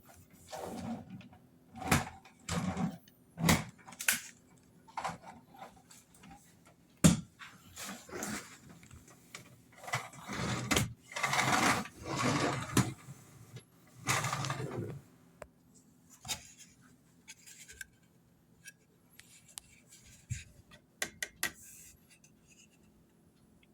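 Hard objects being handled: irregular clicks, knocks and scraping, with a longer stretch of rubbing and scraping near the middle and only scattered light ticks near the end. No motor is running.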